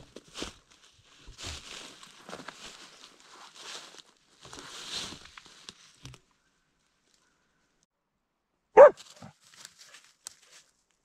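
A person's soft footsteps for the first six seconds, then, about nine seconds in, one loud short bark from a hunting dog baying at a wild boar it is holding at bay.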